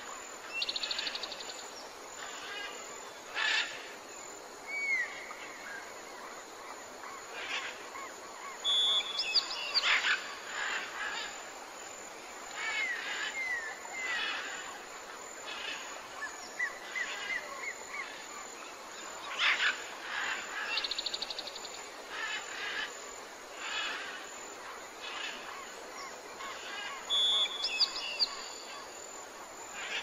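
Several birds calling together: short up-and-down chirps, buzzy trills and clear whistled notes, with a louder call every few seconds over a steady background hiss.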